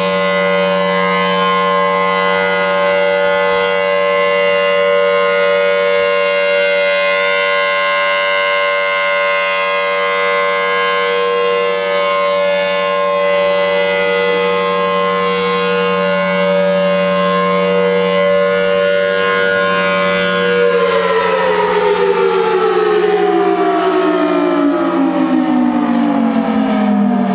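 Pole-mounted electromechanical outdoor warning siren sounding a steady chord-like tone. About three-quarters of the way through it begins winding down, its pitch falling steadily.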